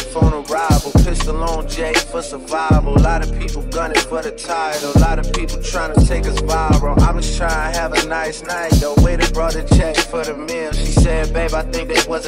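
Hip hop song with a male voice rapping over a steady beat of drum hits and heavy bass.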